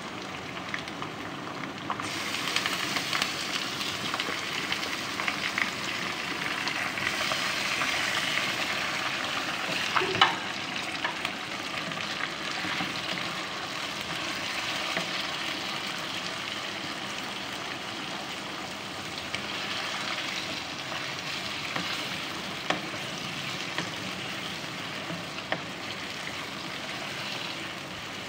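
Raw chicken pieces sizzling in hot oil with fried onions in a karahi, stirred with a wooden spatula that clicks and scrapes against the pan. The sizzle grows louder about two seconds in, and there is one sharper knock of the spatula about ten seconds in.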